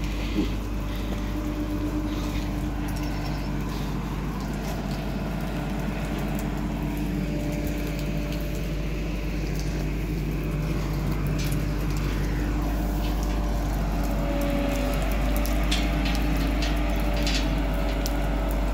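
Construction machine's engine running steadily, a low rumble with a steady hum whose pitch dips slightly about fourteen seconds in. Scattered light clicks and taps in the second half.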